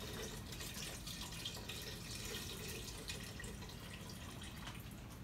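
Chicken stock pouring from a carton into an Instant Pot's stainless steel inner pot, a steady splashing trickle of liquid.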